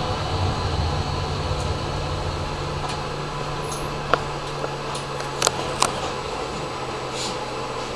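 Tram running on its track, heard from inside the front cab: a steady low hum and rumble, with a few sharp clicks about halfway through.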